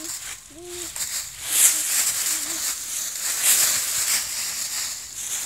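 Dry fallen leaves rustling and crunching as a dog runs and pounces through a thick layer of them, in uneven surges.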